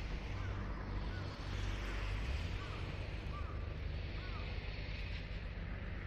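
Wind buffeting the microphone in a steady low rumble, with faint short bird chirps repeated about once a second that stop about two-thirds of the way through.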